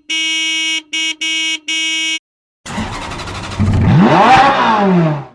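Car horn honking: one long beep, then three shorter ones. After a pause, a car engine revs loudly, its pitch climbing and then falling away before it cuts off near the end.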